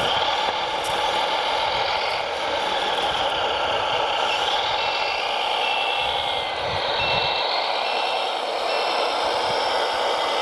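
A heavy machine's engine running steadily with a whine that rises and falls. From just before halfway, a reversing alarm beeps about once a second, the sign that the machine is backing up.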